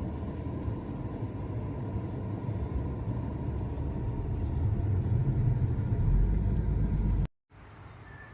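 Steady low rumble of a moving vehicle, with a faint steady whine above it, growing a little louder before cutting off suddenly near the end.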